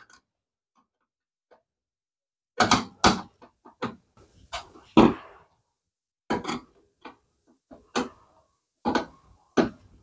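Starting about two and a half seconds in, a screwdriver and hand working on a ceiling fan's mount make irregular, sharp clicks and knocks as its screws are tightened.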